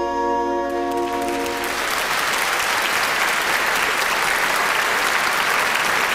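A large concert audience applauding, rising about a second in and then going on steadily. At the start, the orchestra's last held chord of the song dies away under the applause.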